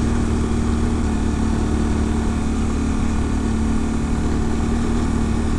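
Yamaha Ténéré 700's parallel-twin engine running steadily at low revs while riding, pulling slowly in third gear with an even, unchanging note.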